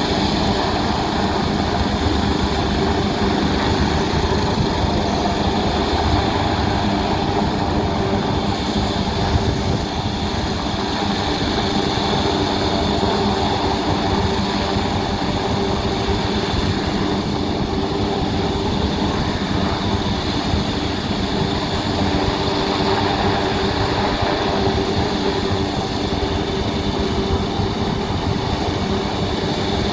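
Helicopter hovering close by, its rotor beating steadily over the engine noise, with a thin high whine running throughout.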